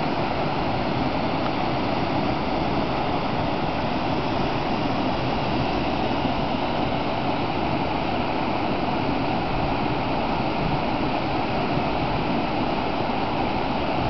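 River in flood rushing steadily over rocks in brown rapids, a continuous even roar of high water.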